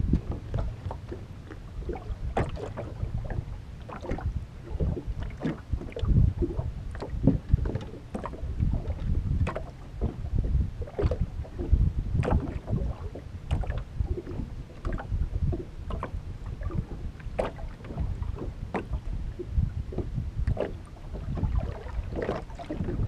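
Small waves slapping irregularly against the hull of an aluminum fishing boat, over a steady low wind rumble on the microphone.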